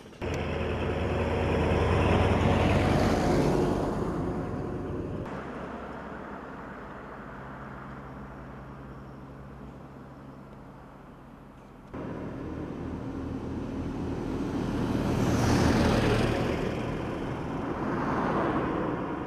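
Road vehicles passing on a highway, tyre and engine noise swelling and fading as each goes by: one pass a couple of seconds in, a quieter stretch, then two more passes near the end. The sound changes abruptly twice, about five seconds in and again about twelve seconds in.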